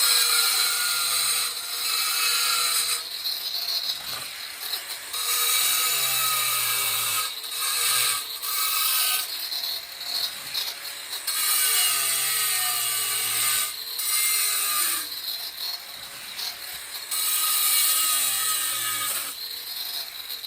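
Angle grinder with a diamond blade grinding through stone tile, its motor whining steadily while the cut swells louder and eases off every second or two as the blade is worked into the tile.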